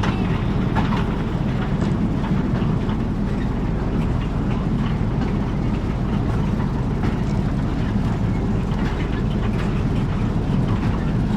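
Narrow-gauge field railway train running along the track: a steady low running noise from the train, with scattered clicks and clatter from the wheels on the rails.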